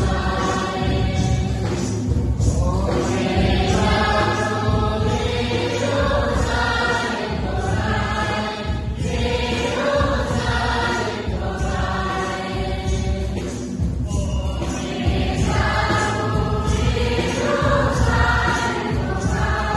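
A large congregation singing a hymn together in many voices, phrase by phrase, with short pauses between phrases.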